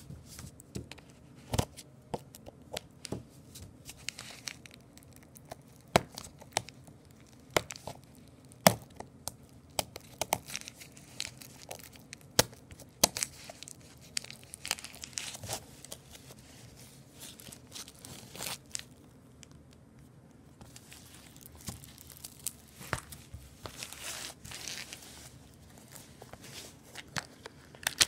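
Packaging being torn and crinkled while a plastic Blu-ray case is handled, with many scattered sharp clicks and snaps.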